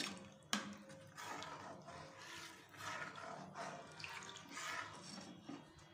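Metal ladle stirring thick yogurt-and-gram-flour curry (kadhi) in a steel kadai, with repeated wet swishes and scrapes of the ladle through the liquid. A sharp clink of the ladle against the pan comes about half a second in.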